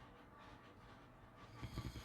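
Sleeping pit bull snoring: faint breathing, then a loud snore begins near the end.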